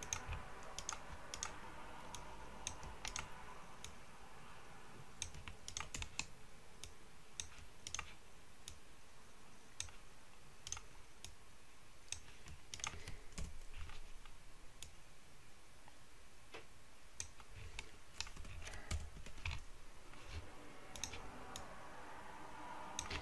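Computer mouse buttons and keyboard keys clicking irregularly and faintly during 3D-modelling work, with pauses between the clicks.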